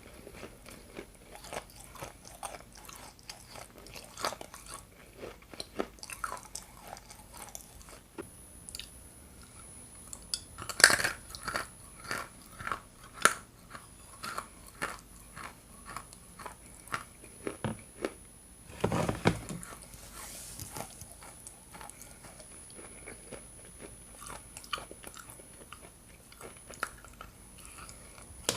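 Hard pieces of edible Ural clay being bitten and chewed close to the microphone: a run of short, sharp crunches between quieter chewing, with the loudest crunches about eleven and thirteen seconds in.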